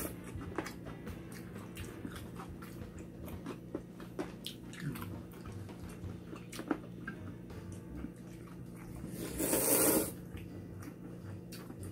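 Close-up eating sounds: chewing and small wet clicks throughout. About nine seconds in comes a loud slurp of cold noodles lasting about a second.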